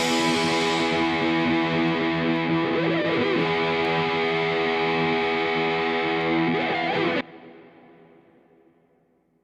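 Background music on distorted electric guitar, holding sustained chords that change twice; it cuts off abruptly about seven seconds in, leaving a short fading tail into silence.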